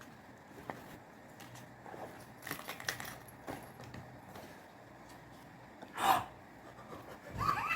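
Small clicks and rattles of objects being handled, with a louder knock about six seconds in. A dog starts to whine right at the end.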